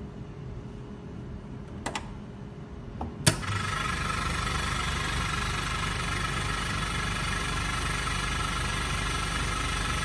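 A sharp click about three seconds in, then a small air compressor starts and runs steadily, building air pressure in the line to the filter-regulator.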